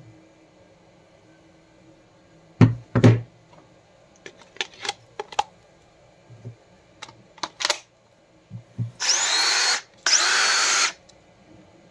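Fein 18V cordless drill run twice in short bursts of about a second each, its motor whine shifting in pitch as it spins up and down, powered by a Makita 18V LXT battery through an adapter. Before that come two loud knocks and a run of lighter plastic clicks as the battery and adapter are handled and fitted.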